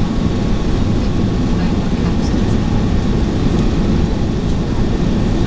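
Steady roar of engine and airflow noise inside the cabin of an Airbus A380 descending on final approach, heaviest in the low rumble.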